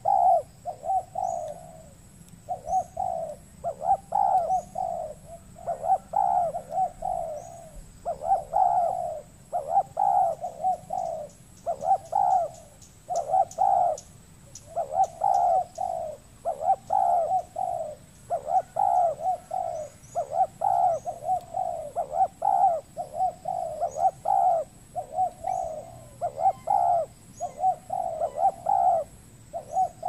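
Spotted dove cooing over and over, one phrase after another with short pauses between them.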